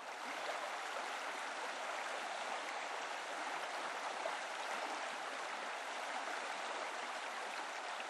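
Rushing, churning water: a steady splashing rush that swells up from silence in the first half second and then holds even.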